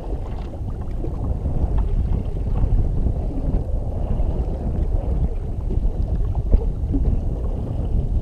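Wind rumbling on the microphone, with water moving against a jet ski's hull: a low, steady noise with no clear engine tone.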